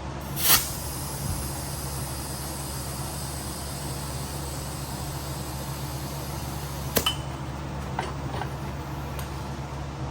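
Tire-changing work on a small golf-cart wheel: one loud knock about half a second in, then a few sharp metal clinks of the tools near the end, over a steady low hum.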